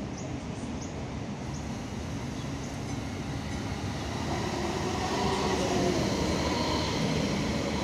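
Two-car Phase 3 light rail train arriving at a stop, its running noise growing louder from about four seconds in as it draws close. A faint bell rings from the level-crossing caution pole, which is set off as the tram is about to cross.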